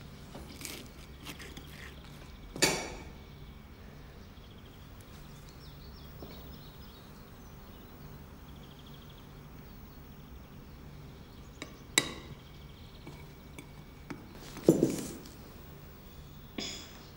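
Crockery clinking and knocking on a table: four separate knocks several seconds apart, the loudest a little before the end, over a low steady hum.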